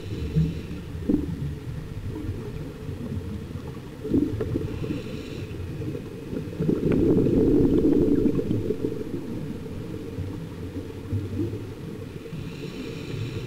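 Muffled underwater rumble and bubbling heard through a camera housing, from a scuba diver's breathing. It swells loudest from about seven to nine seconds in. A faint hiss of the regulator comes three times: at the start, about five seconds in, and near the end.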